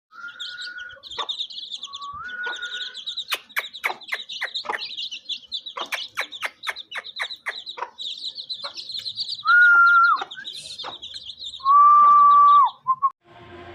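Birds chirping and twittering, with a run of rapid sharp chirps in the middle and two loud, steady whistled calls near the end, the second dropping in pitch as it ends.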